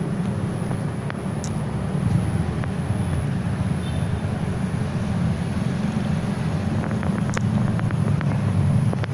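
Steady low outdoor rumble, with a few faint clicks near the end.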